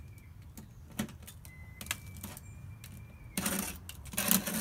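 A hand tool cutting and scraping at old paint and filler on a wooden window sill. There are a few separate sharp clicks, then two short scraping strokes near the end, which are the loudest sounds.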